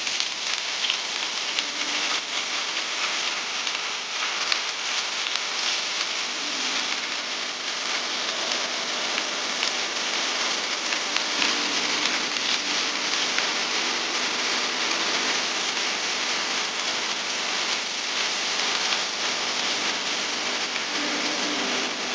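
Food frying in hot oil in a pan, a steady dense sizzle with many small crackles.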